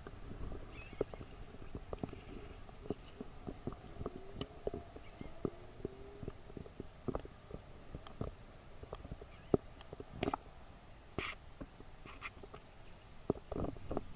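Water lapping and gurgling, with scattered small clicks and pops and a few louder splashes near the end.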